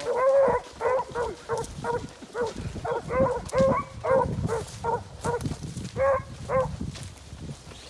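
Beagles barking in short, repeated yelps about twice a second, stopping near the end. They are giving voice as they run a scent trail in a brace.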